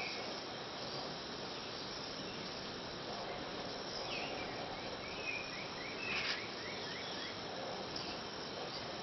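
Steady insect chorus with a short run of quick, falling bird chirps about four to five seconds in. A sharp click about six seconds in is the loudest moment.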